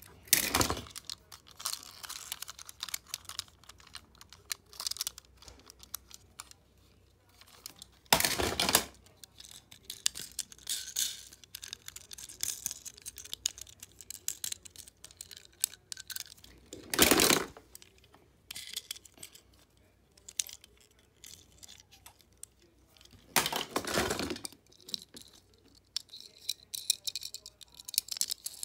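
Small die-cast toy cars clicking and clattering against one another and the plastic storage bin as they are handled and rummaged through, with four louder rattles spread through.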